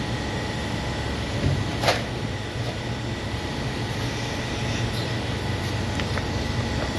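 Steady low machine hum with a faint steady whine above it, and a sharp click about two seconds in.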